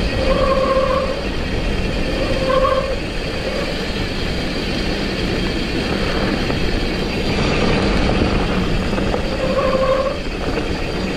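Mountain bike riding fast downhill on a dirt trail: steady rumble and hiss of tyres and wind on the microphone. A short pitched whine comes three times: near the start, after about two and a half seconds, and near the end.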